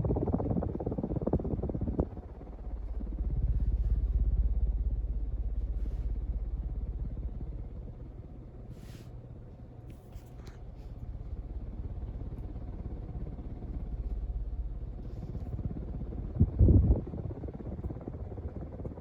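FASCO Charleston 36-inch ceiling fan running on high: a steady motor hum under a low rumble that swells and fades. A short thump comes about seventeen seconds in.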